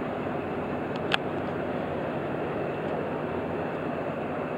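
Steady low rumble of a passing inland motor cargo ship's diesel engine. There is one sharp click about a second in.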